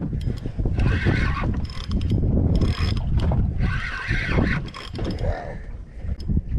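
Penn Slammer spinning reel cranked hard against a big fish, its gears whirring in repeated surges about a second apart as line is gained, over wind rumbling on the microphone.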